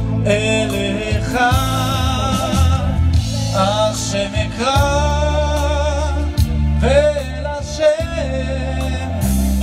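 Music with singing: one voice with a strong vibrato, sliding and ornamenting between notes over held low accompaniment chords that change every second or two.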